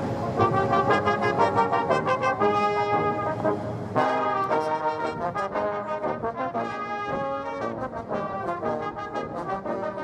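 Military brass band music: trombones, trumpets and a sousaphone playing a tune together, with the music jumping to a new passage about four seconds in.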